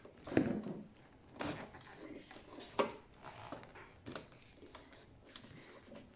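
A screwdriver and hands working on a DVD player's sheet-metal case while a screw is taken out: scattered short clicks, scrapes and knocks. The strongest comes just under half a second in.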